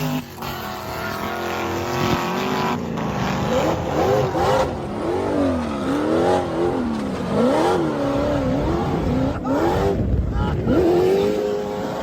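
V8 engine of an off-road dune vehicle being revved hard, its pitch rising and falling over and over, with a few brief drops in between.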